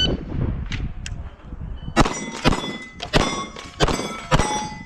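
Five pistol shots about half a second apart, starting about two seconds in. Each is followed by the ringing clang of a struck steel target plate.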